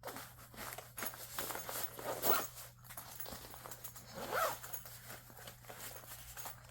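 Zipper on a fabric sling bag being pulled, with two longer raspy zips about two seconds apart among rustling and small handling clicks.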